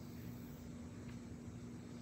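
Faint, steady background: an even low hum under a low rumble of noise, with no distinct event.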